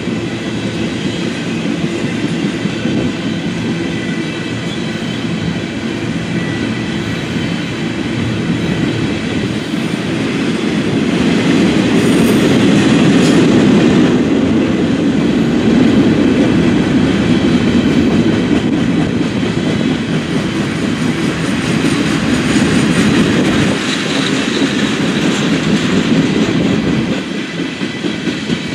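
Freight train passing, its flatcars carrying wind turbine blades and its covered hoppers rolling by with a steady rumble of steel wheels on the rails. It grows louder about ten seconds in and eases off slightly near the end.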